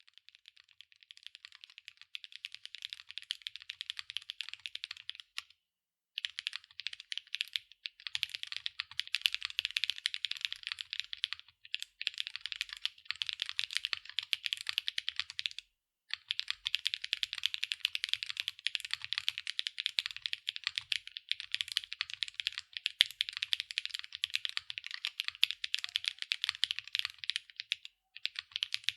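Fast, continuous typing on a NEO80 mechanical keyboard with Huano Gift linear switches, an aluminium plate and PBT/ABS double-shot keycaps: a dense run of key clacks, broken by a few short pauses.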